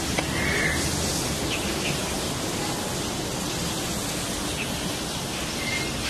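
Steady rushing background noise, like running water or air. A short faint chirp sounds about half a second in and again near the end.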